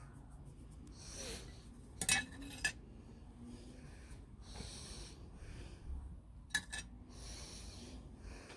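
A person breathing out hard three times, puffs of breath a few seconds apart, with a few sharp metal clinks in between.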